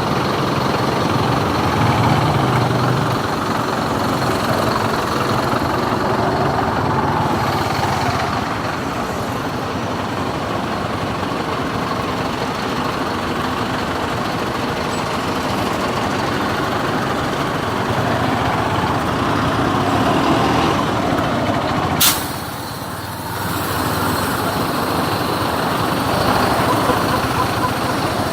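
Motorcycle riding in traffic: the engine running under a steady rush of wind noise. About three-quarters of the way through there is a sharp click, and the sound briefly drops quieter.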